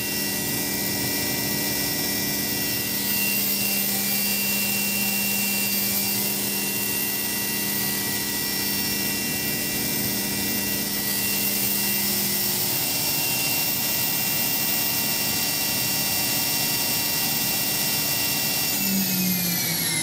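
Spindle of a Bridgeport VMC 800/30 XP2 CNC vertical machining center running at its 12,000 RPM top speed: a steady whine made of several even tones. Near the end the tones all start gliding down as the spindle begins to slow.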